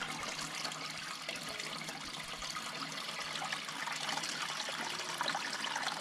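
Fresh cow's milk pouring in a steady stream from a pot through a cloth strainer into a large metal pan of milk, splashing and trickling.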